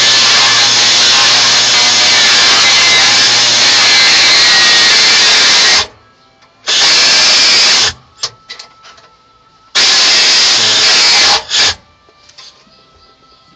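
A handheld power tool running in bursts: one long run of about six seconds, then two shorter runs a few seconds apart, and a brief blip near the end.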